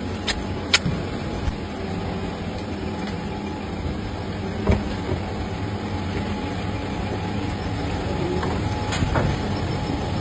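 Steady low workshop rumble with a few sharp clicks or taps: two near the start, one about midway and one near the end.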